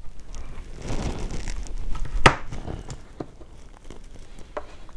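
Craft knife cutting a thin wooden moulding strip: a rustling scrape, then one sharp snap about two seconds in as the blade goes through, followed by a few light clicks as the piece is handled.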